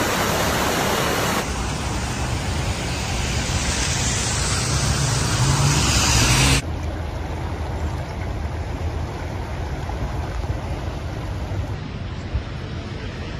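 Floodwater rushing past, a steady noisy wash of water. The sound changes abruptly twice, about a second and a half in and again just past six seconds, where it gets quieter.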